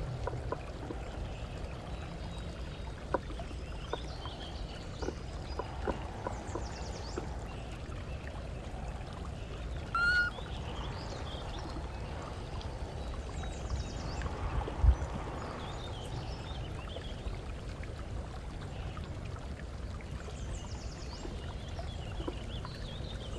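Outdoor background noise: a steady low rumble with scattered light clicks and a few faint high chirps, and one short squeak about ten seconds in.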